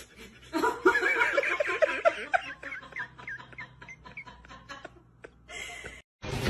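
A person laughing in a quick run of short, rising-and-falling bursts, fading out about two and a half seconds in, followed by a few faint clicks.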